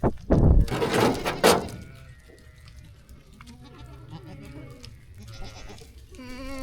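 Sheep bleating: a few faint bleats, then one clear, falling bleat near the end. It is preceded by a loud burst of rustling and knocking noise in the first second and a half.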